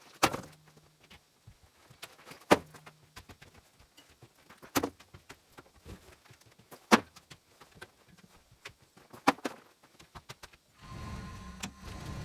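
Five sharp knocks, about two seconds apart, with faint clicks between them; near the end a steady mechanical running noise with a low rumble starts.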